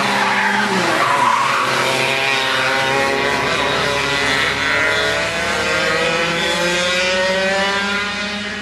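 Several 125cc two-stroke Parilla Leopard kart engines racing: one kart passes close by with its pitch dropping about a second in, then a pack of engines climbs together in rising whines as they accelerate, easing off near the end.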